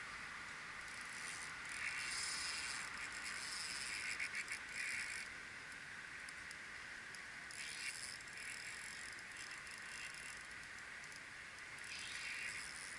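Okuma RTX 40 spinning reel's drag clicking in three bursts as a hooked asp pulls line against it during the fight, over a faint steady hiss.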